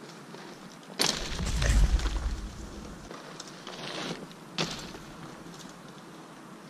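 Mountain bike riding a dirt trail: a sudden thump about a second in, followed by about two seconds of heavy low rumble, then a smaller rattle and a sharp knock about four and a half seconds in.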